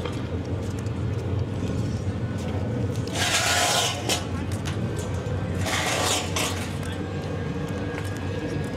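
Street ambience: a steady low rumble of traffic, with two short bursts of hiss about two and a half seconds apart.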